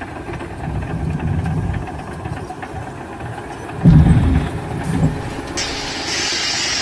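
A heavy engine rumbling, with a loud thump about four seconds in and a steady hiss joining near the end.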